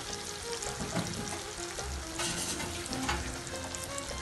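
Salmon pieces in an onion-tomato masala sizzling in a frying pan, with scattered small pops and crackles. No water has been added, so the fish is cooking in the fat it has released.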